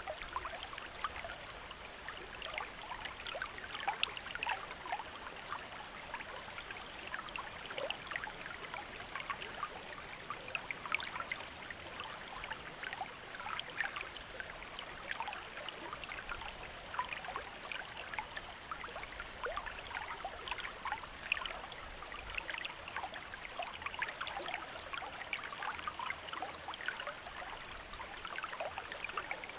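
Running water, a small stream trickling and burbling steadily with many small splashes.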